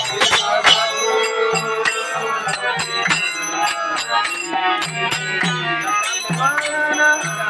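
Devotional arati kirtan: voices sing over a steady low tone while metal hand cymbals clash in a quick, even rhythm. The singing swells near the end.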